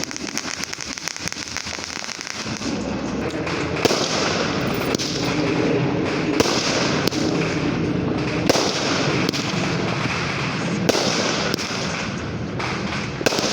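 Consumer fireworks going off: a dense crackle at first, then from about three seconds in a steady rushing hiss with a sharp bang roughly every second.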